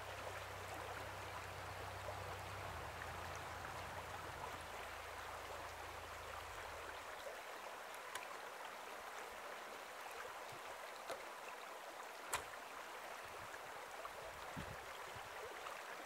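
Faint, steady rushing outdoor ambience with a low hum that stops about seven seconds in and a single sharp click about twelve seconds in.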